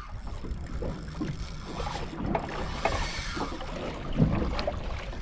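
Steady wind and sea noise around a small fishing boat on open water, with a few faint knocks and clicks.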